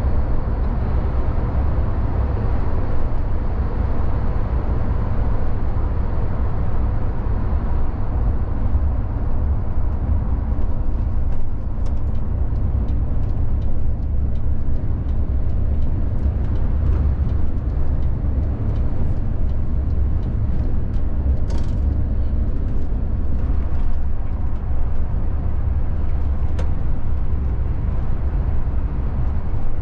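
VDL Futura coach under way: steady low engine and road rumble, with scattered light clicks and a brief hiss a little past two-thirds of the way through.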